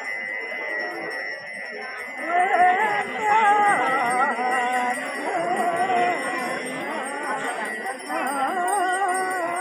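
Ceremonial bells ringing steadily with a high jingle. About two seconds in, a louder wavering melody joins them.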